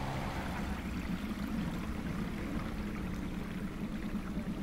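Water rushing and splashing steadily around a small boat moving on the lake, with a low steady hum underneath.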